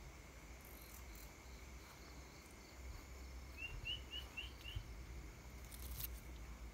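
Faint night-time insect ambience: a steady, thin high drone, with a run of five quick chirps about halfway through and a short rustle near the end.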